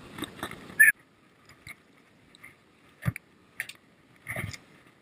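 A short sharp sound about a second in, then a few separate soft knocks and clicks spaced roughly a second apart, with near quiet between.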